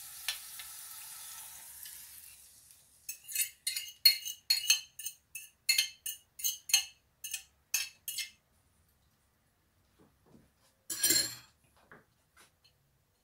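A metal spoon clinks and scrapes against a ceramic plate in a quick run of about three strokes a second, scraping beaten egg and mushroom out into a frying pan. This follows a faint sizzle from the pan that dies away over the first two seconds. A short, louder clatter comes near the end.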